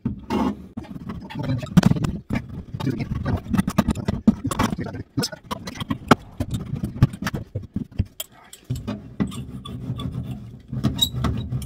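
Steel hand roller pressed and rolled over self-adhesive sound-deadening sheets stuck to the Kombi's metal body panel: a scraping, rubbing sound with many sharp clicks and knocks from the panel, with a short pause about eight seconds in.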